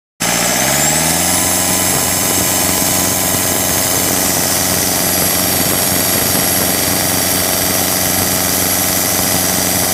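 Car engine running with its turbocharger's thin high whine: engine note and whine rise together over the first second or so, then hold steady.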